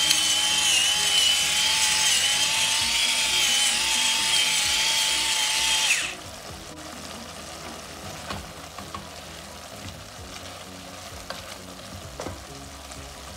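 Electric pepper mill grinding black peppercorns: a steady whirring motor with a hiss of grinding, stopping about six seconds in. After it, ground beef frying quietly in olive oil, with a spatula stirring it near the end.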